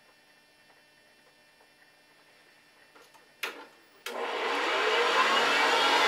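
Hoover Convertible Model 70 upright vacuum cleaner being switched on: a sharp click about three and a half seconds in, then the motor starts and spins up, a loud rush of air with a whine slowly rising in pitch.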